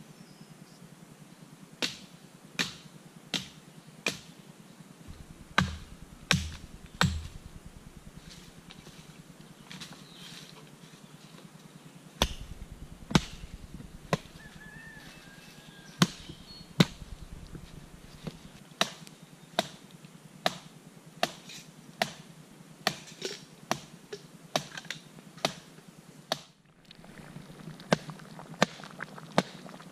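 Hatchet chopping sticks of firewood: a string of sharp knocks, roughly one a second with short pauses.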